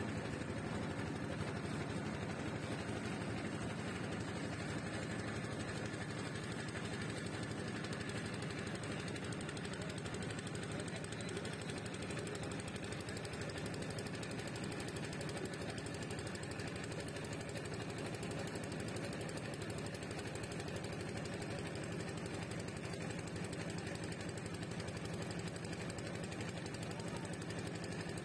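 A wooden river boat's engine running steadily at an even pace.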